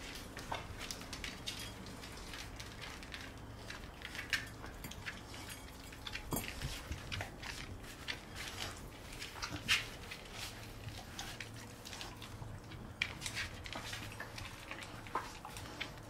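Dogs, an Old English Sheepdog and a Labrador Retriever, eating dry kibble from a floor bowl and off a hard floor: scattered crunches and clicks of chewing and kibble knocking about. A few louder clicks fall about four, six and ten seconds in.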